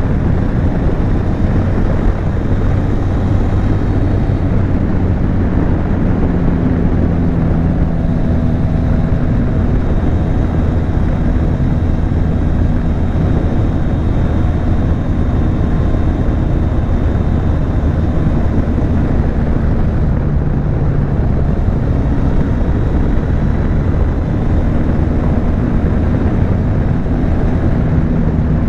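Benelli TRK 502's parallel-twin engine and exhaust running under way at a fairly steady speed, picked up by a microphone mounted on the motorcycle. The engine note drifts slightly up and down, dropping a little about twenty seconds in.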